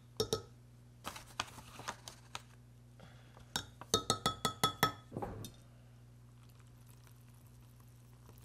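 Metal measuring spoon clinking against a glass measuring cup while thickener is spooned into broth, with scattered taps and then a quick run of ringing taps about four seconds in, ending in a short scrape.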